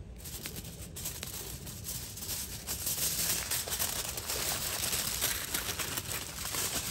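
Aluminium foil crinkling and rustling as it is folded and crimped by hand around a raw potato, with many fine crackles. It grows louder about two and a half seconds in as the wrapping tightens.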